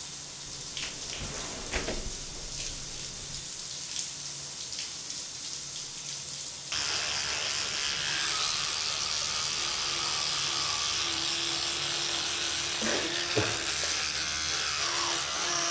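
Shower water hissing steadily for the first several seconds. About seven seconds in, it switches suddenly to the steady buzz of an electric toothbrush and the scrubbing of teeth being brushed.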